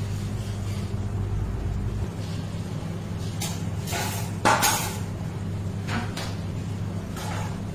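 Handling noise: a few short knocks and clicks over a steady low hum, the loudest knock about four and a half seconds in.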